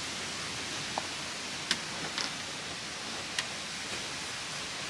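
Awning bag being pushed into a caravan's side storage hatch: a few light clicks and knocks over a steady background hiss.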